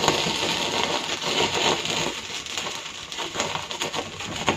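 Wood fire of a homa crackling, a dense run of snaps and pops from the dry wood burning, easing a little after about two seconds.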